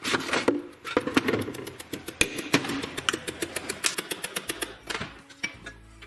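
Rapid, uneven run of sharp metallic clicks and taps from hand tools on the oil pump's housings as the alignment pins go in and the nuts are worked. Background music comes in near the end.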